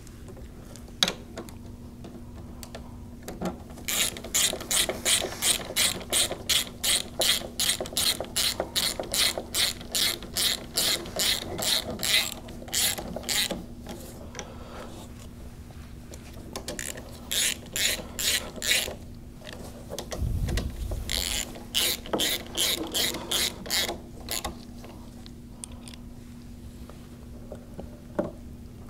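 Hand socket ratchet clicking as bolts are tightened, in runs of quick strokes, about three clicks a second, with pauses between the runs. A short low thump comes about two-thirds of the way through.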